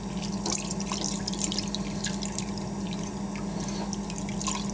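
Water poured from a plastic bottle onto a soapy hand, splashing and dripping irregularly into a glass measuring jug, over a steady low hum.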